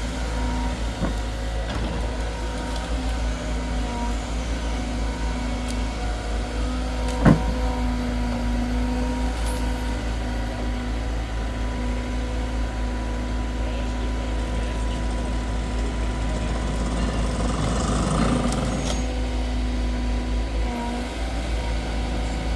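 A Vosch forestry excavator running steadily, its engine and hydraulics giving a constant drone with a steady whine. There is one sharp knock about a third of the way through, and a busier stretch of working noise about three-quarters of the way in.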